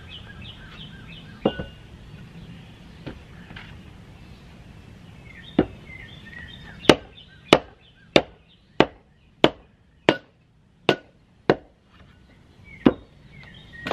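A homemade wooden mallet knocking a metal splitting blade down into a log round to split it. Three spaced blows come first, then a steady run of about nine blows, roughly one and a half a second, starting about seven seconds in. Birds chirp faintly in the background.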